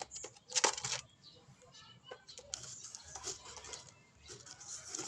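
A bird pecking greedily at its food: irregular runs of small taps and clicks in short bursts.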